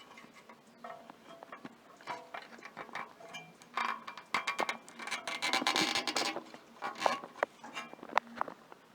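Hands working on a small engine's ignition wiring: a string of light clicks and taps from wires and parts being handled, with a louder rustling scrape about four to six seconds in.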